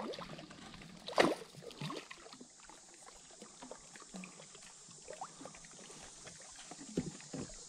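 A small hooked spotted bass splashing at the water's surface beside a kayak: one loud splash about a second in and a smaller one soon after, then faint dripping and lapping water as the fish is lifted clear.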